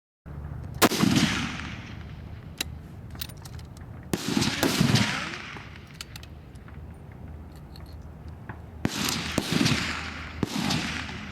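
Rifle shots on a long-range firing line: three sharp reports about four seconds apart, each followed by a rolling echo that fades over about a second, with fainter cracks of distant shots in between.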